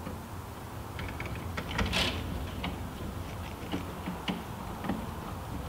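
Small metallic clicks and scrapes of a screwdriver turning the terminal screw on a subpanel's neutral bar to clamp a neutral wire, with one louder scrape about two seconds in.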